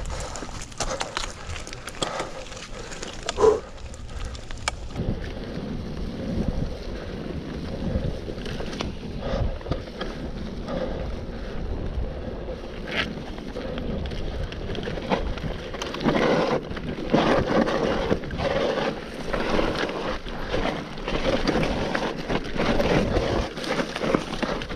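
Mountain bike rolling over a bumpy dirt singletrack, its tyres on the ground and the bike rattling and knocking over bumps, with wind buffeting the camera microphone. The knocking gets busier and louder in the second half.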